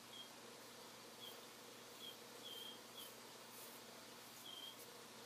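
Near silence: faint room tone with a soft, short high-pitched chirp about every second.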